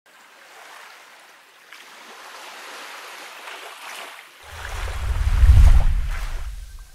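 Steady rushing noise of wind and surf. About four and a half seconds in it swells into a loud, deep buffeting rumble, which fades out near the end.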